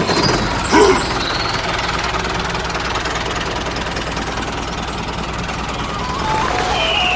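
Small motor-driven machine running steadily with a dense rattling noise and a low hum, with a brief louder squeal about a second in.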